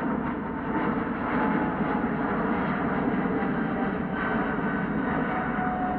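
Boeing 777-300ER's twin GE90-115B turbofans at takeoff climb power, heard from the ground: steady jet noise with faint whining tones drifting slowly lower as the airliner climbs away.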